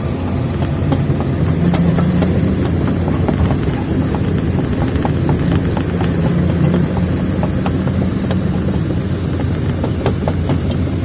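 Excavator diesel engine running steadily, with many small metallic knocks and clanks over it throughout.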